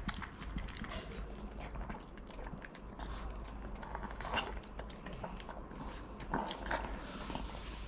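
Maltese dogs eating chicken breast from glass bowls: hurried chewing and lapping with many small irregular clicks, a few louder ones about four and six seconds in.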